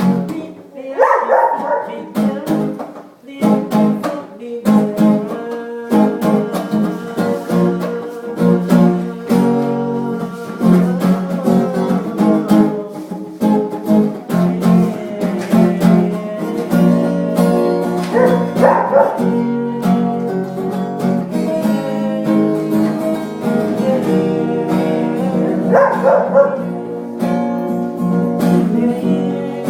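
Acoustic guitar strummed steadily in chords, with a dog barking a few times over the playing.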